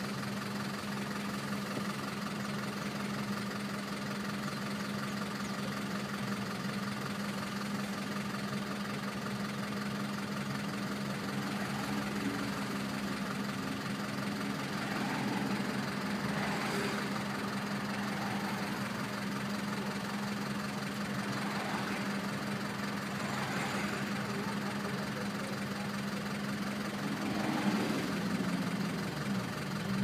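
City street traffic: a vehicle engine idling with a steady low hum, while other vehicles pass now and then, the loudest pass near the end.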